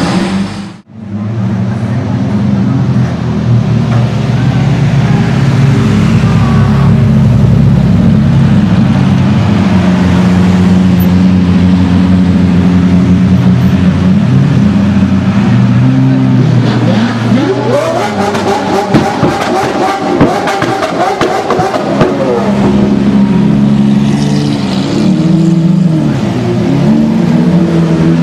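Lamborghini Aventador V12 engines idling with a deep, steady note. About 17 s in one is revved, its pitch climbing and falling, with a rapid crackle of exhaust pops between about 18 and 22 s.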